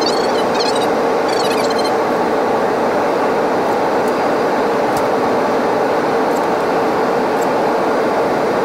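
Steady rushing cabin noise of an FDA Embraer regional jet climbing out after takeoff, with a couple of faint clicks about four and five seconds in.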